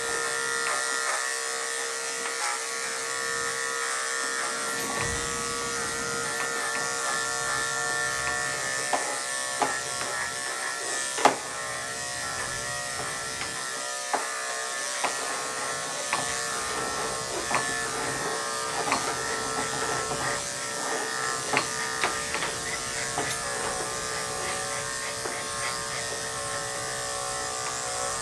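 Electric pet grooming clippers running with a steady buzz while a small dog is clipped. A few short sharp clicks stand out over the hum, the loudest about eleven seconds in.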